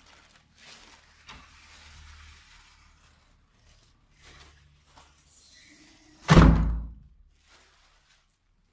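Wooden apartment door being unlatched, with a few faint clicks and rustles, then slammed shut once about six seconds in with a loud thud.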